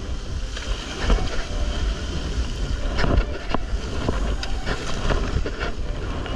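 Wind buffeting the microphone at sea, over a steady wash of water, with a few short sharp knocks in the middle.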